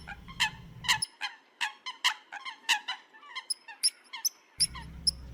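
Eurasian coots calling: a rapid series of short, sharp calls, several a second.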